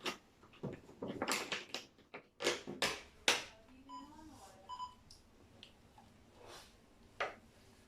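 Handling clicks and knocks of plastic gear, the loudest in the first few seconds, then two short electronic beeps a little over half a second apart.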